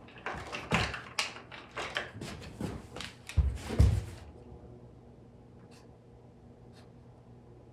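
Hard objects being handled on a workshop tool cart: a rapid run of clicks and clatters, then two heavier thumps about three and a half seconds in, as the torch is settled into its holder. After that only a faint steady hum.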